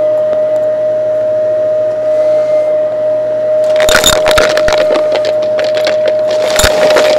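Shark upright vacuum cleaner running with a steady motor whine. From a bit past halfway, coins are sucked up off a shag rug and rattle through the nozzle and into the clear dust canister in dense runs of metallic clinks, with another burst near the end.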